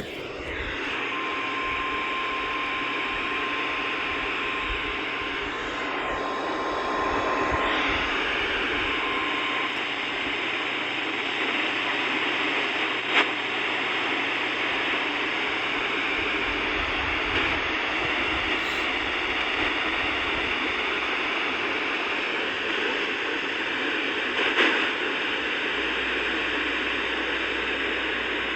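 Weather radio hissing with static from a weak station signal, with a faint steady high tone for about seven seconds near the start and briefly again a little later.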